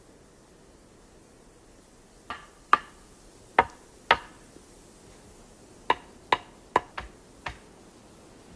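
A series of sharp knocks: four, then after a short pause five more, irregularly spaced.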